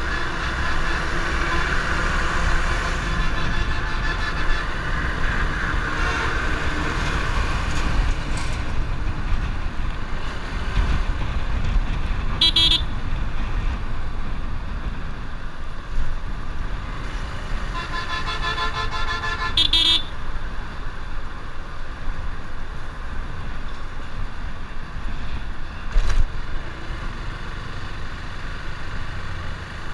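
Motorcycle riding along a highway in traffic: steady wind and road noise with the engine running underneath. A vehicle horn honks briefly about twelve seconds in and again in a longer blast around eighteen to twenty seconds.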